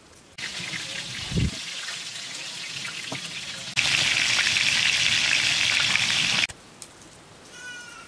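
Fish sizzling in hot oil in a large pan: a loud, steady hiss that starts abruptly about four seconds in and cuts off a few seconds later. Before it comes a quieter hiss with one low thump.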